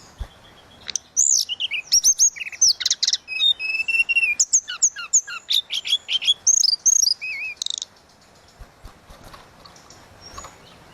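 Tledekan laut songbird singing hard: a fast run of high whistled chirps, sweeping slurs and trills, which stops at about eight seconds, leaving only faint scattered sounds.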